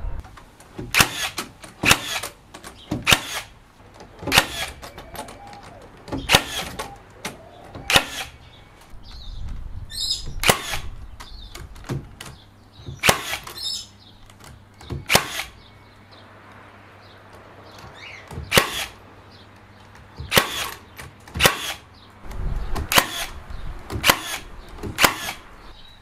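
HiKOKI 36V metal connector nailer firing nails through galvanised steel hurricane-tie brackets into timber joists: about sixteen sharp shots, one every one to two seconds.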